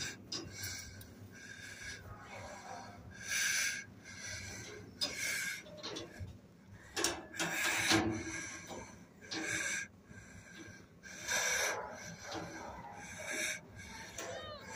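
Wheezy, noisy breathing close by: a hissy breath roughly every second or two.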